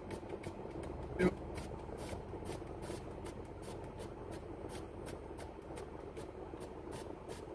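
Car stereo radio being swept through stations by hand: a steady hiss of static broken by quick clicks a few times a second. About a second in comes a brief louder snatch of sound.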